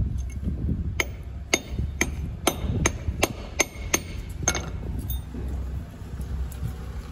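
Hammer striking a small cast gold bar on a concrete floor: about nine sharp blows at roughly two a second, each with a brief metallic ring.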